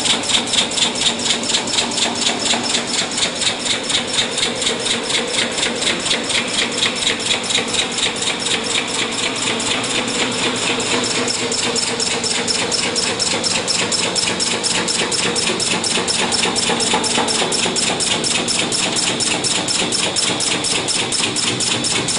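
Automatic sink-welding machine welding a stainless steel sink basin into a countertop along its rim. It makes a rapid, even pulsing at about four or five beats a second, as the welding current pulses through the water-cooled wheel electrode.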